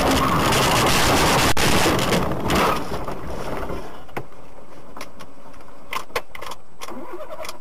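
Car cabin noise heard through a dash camera: loud rushing road and wind noise that dies away about three seconds in as the car comes to a stop. A low steady hum follows, with a few scattered clicks.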